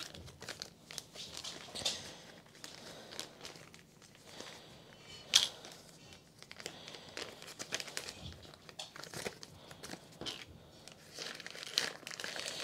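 Plastic packaging rustling and crinkling as it is handled, with scattered small clicks and one loud click about five seconds in.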